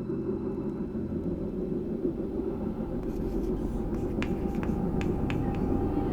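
A steady low rumble, like a vehicle running, with a few faint clicks about four to five seconds in.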